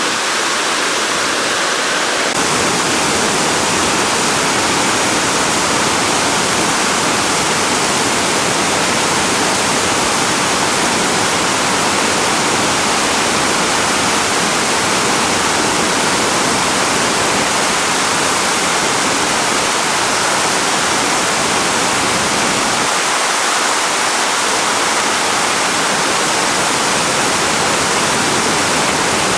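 Waterfall pouring: a loud, steady rush of falling water with no break or change.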